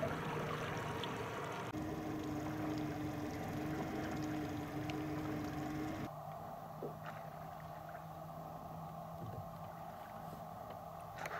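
Boat engine running at low idle with a steady low hum over water and wind noise. The hum changes abruptly about two and six seconds in.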